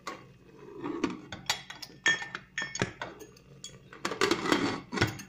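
Aluminium pressure cooker lid clinking and scraping against the rim of the pot as it is handled and fitted. The sharp metallic clinks and knocks come scattered, thickest about four seconds in.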